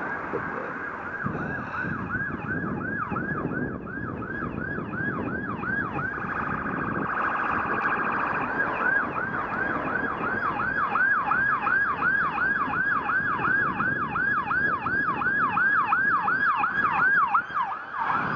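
Police car siren in yelp mode: a fast repeating wail, about three sweeps a second, briefly switching to a quicker warble about seven seconds in, growing louder as the cruiser approaches.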